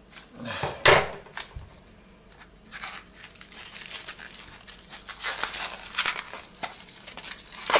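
Plastic wrap crinkling and tearing as tight plastic film is cut with scissors and pulled off a metal case by hand. It comes in irregular rustling bursts, the loudest about a second in, and a longer run of crinkling a little past halfway.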